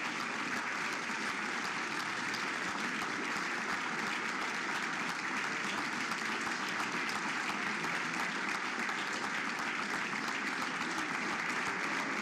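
Large audience applauding steadily, a dense, even clapping with no break.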